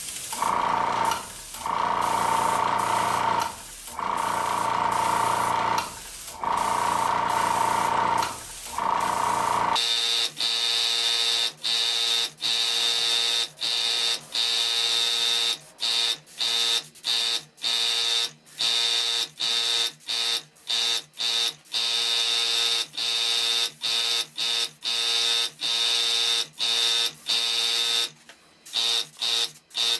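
Electric buzz with air hiss from an airbrush setup, chopped into short stretches by frequent brief breaks. The buzz changes about ten seconds in to a fuller one with a higher edge.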